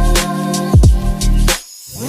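Background music with a heavy bass beat and a short break near the end.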